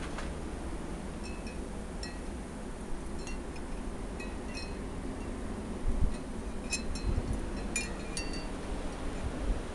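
Snowstorm wind blowing and gusting, with a low rumble and a few bumps of wind on the microphone. Scattered light clinking, tinkling sounds come through it, thickest near the middle and in the second half.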